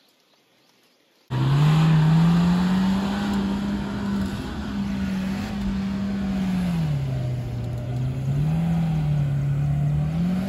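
Off-road SUV engine working and revving under load on a steep dirt climb; it cuts in abruptly about a second in after near silence, its pitch rising, holding, dipping twice and climbing again near the end.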